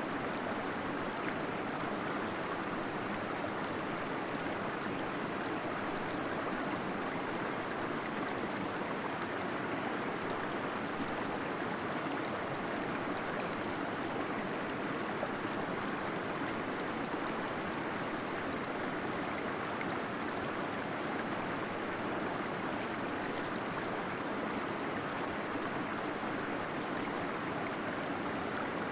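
A small waterfall splashing and gurgling steadily into a pool inside a cave.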